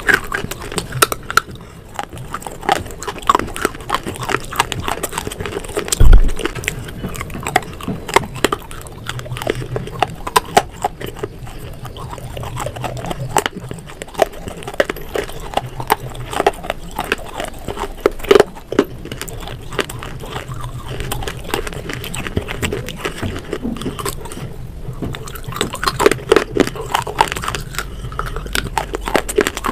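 Close-up eating sounds: crisp crunching bites into brittle pieces of baked clay pot and slate dipped in a soft paste, with chewing and wet mouth sounds between bites. A single heavy thump sounds about six seconds in.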